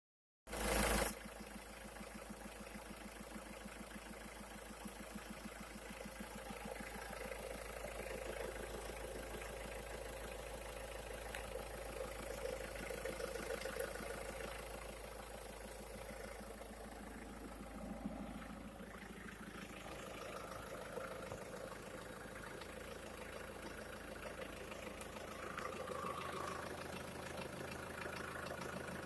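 Renault 1.5 dCi (K9K 724) diesel engine idling steadily with a knock, which the owner places in the oil pan. A brief loud burst comes just at the start.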